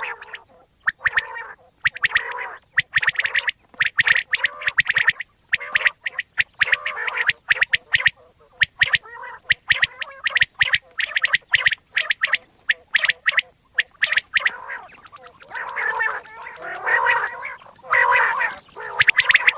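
Common quail calling: rapid runs of sharp clicking notes alternating with harsher rasping calls, the rasping longest from about fifteen seconds in.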